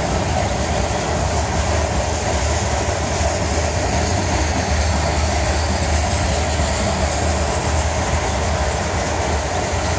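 Freight train's hopper cars rolling past: steel wheels running on the rails in a loud, steady rumble.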